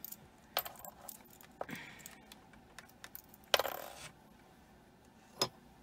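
Black onyx and gold-tone metal earring handled and set down on a tabletop: a few light clicks, a louder clattering clink about three and a half seconds in, and a single sharp knock near the end.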